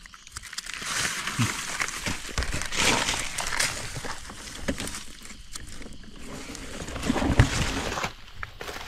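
Dry leaf litter and forest soil rustling and crunching as a mushroom is dug out by hand with a knife, with many small clicks and snaps and one sharper snap near the end.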